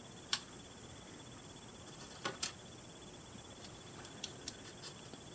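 Tiny plastic Re-Ment miniature pieces being handled, giving a few light clicks and taps: one about half a second in, a quick pair about two and a half seconds in, and faint ticks near the end, over a low steady hiss.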